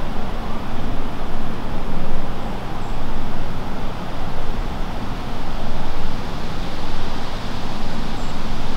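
Loud, steady rushing noise, heaviest in the low end, swelling and easing about once a second, with a few faint high chirps.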